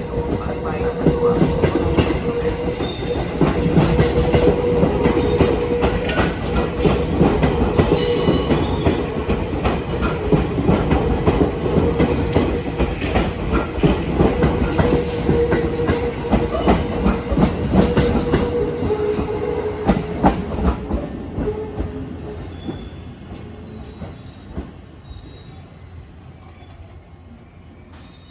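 Electric train running along the station track, wheels clacking over rail joints with a steady tone, growing fainter as it moves away from about three-quarters of the way through.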